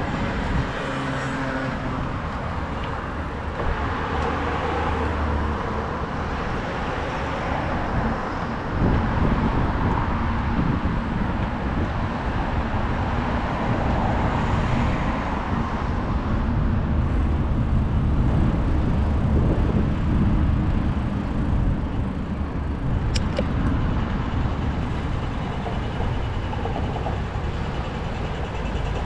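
City street traffic, with cars passing and a steady low rumble.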